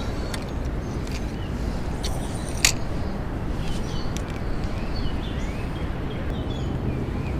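A steady low rushing noise with small birds chirping now and then, and one sharp click about two and a half seconds in.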